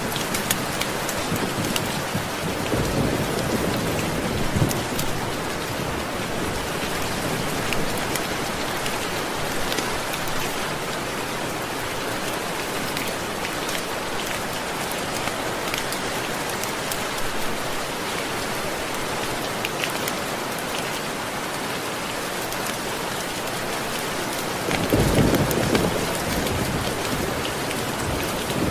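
Steady rain falling, with two low rolls of thunder: one about three seconds in and a louder one near the end.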